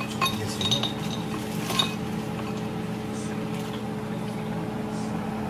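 Kitchenware clinking: three or four sharp metal-and-dish clinks in the first two seconds, over a steady low hum.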